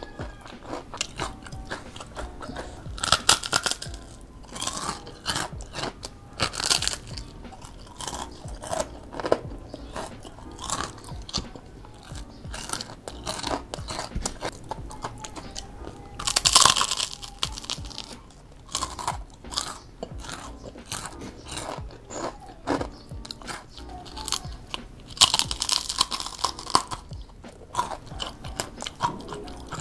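Crispy fried tempeh being bitten and chewed, with repeated crunching. A few much louder crisp bites stand out from the steady chewing.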